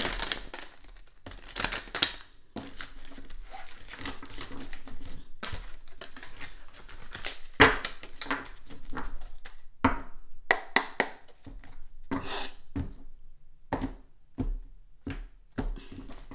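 A deck of tarot or oracle cards shuffled by hand: irregular papery rustles and riffles, with a couple of sharper card snaps about two seconds and seven and a half seconds in.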